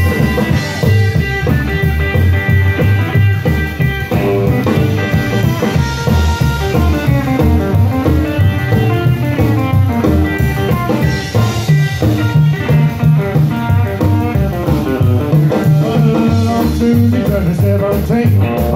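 Live rockabilly trio playing an instrumental break with no vocals: an electric hollow-body guitar plays the lead over upright double bass and a drum kit keeping a fast, driving beat.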